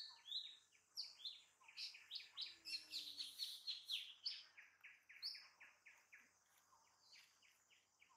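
Birds chirping in a rapid series of short, high notes that slide downward, several a second, fading after about five seconds.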